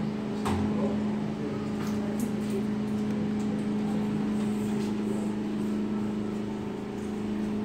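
Electromechanical piston operators of a four-leaf folding metal gate running with a steady electric hum while the leaves swing, with a light click or two.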